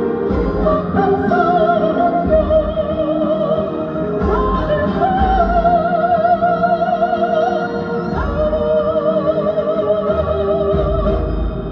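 Live performance of an upbeat old pop song over an amplified backing track: a lead melody in long held notes with wide, even vibrato, over steady low bass beats.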